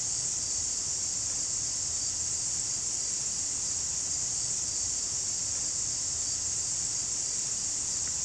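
Steady, high-pitched chorus of insects droning continuously without a break.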